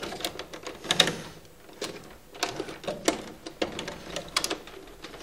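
Insulated wires being pulled and pushed by hand through a distribution board, rustling and clicking irregularly against the plastic circuit breakers and terminal blocks, with sharper clicks about a second in and again about three seconds in.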